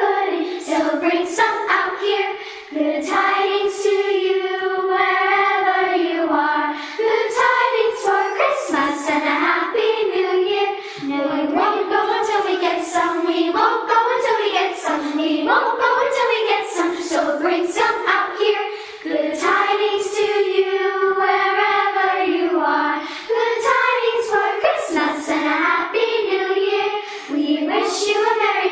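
A youth choir singing, with long held notes and brief breaks between phrases every few seconds.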